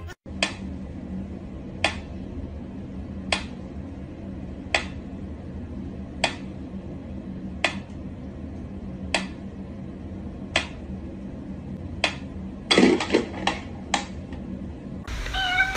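Mechanical pendulum metronome ticking slowly and evenly, about one tick every one and a half seconds. Near the end comes a short clatter of louder knocks, followed by two more ticks.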